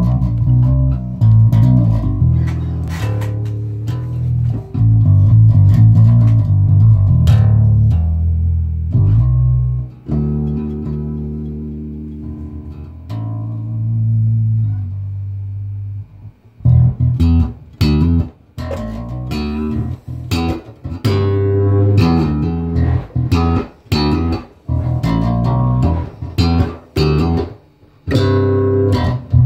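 Electric bass guitar played fingerstyle: long held low notes for the first half, then short, choppy plucked notes with sharp attacks from about halfway on.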